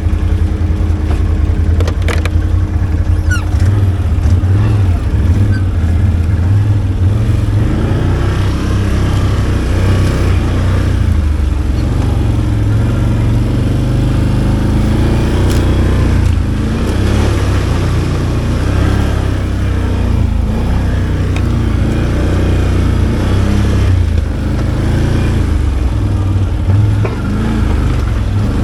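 ATV engine running through the whole stretch, steady at first, then its revs rising and falling repeatedly from about eight seconds in as the machine crawls a rough trail.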